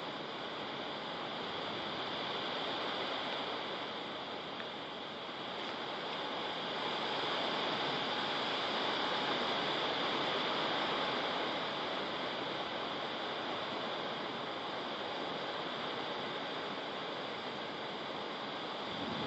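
Heavy rain pouring down in a windstorm: a steady hiss that swells about seven seconds in and then holds.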